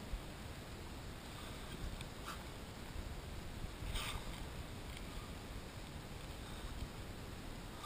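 Quiet room tone in a large hall: a steady faint hiss with a few soft rustles and light taps, the clearest about four seconds in.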